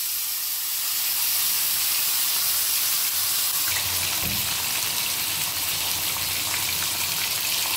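Marinated pomfret fish shallow-frying in hot oil in a grill pan: a steady, loud sizzle.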